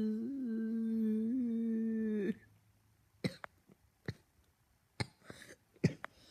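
A boy's voice holds one long, steady vocal note for a couple of seconds, then breaks off with a short downward slide. After that there is near quiet with a few faint, sharp clicks.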